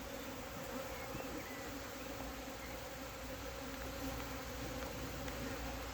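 Many honeybees buzzing steadily around a busy hive, one constant hum.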